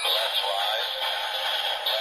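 Tinny electronic music and synthesised sound effects playing from the small built-in speaker of a Bandai DX Metal Cluster Hopper Progrise Key toy, with a steady high tone running through it.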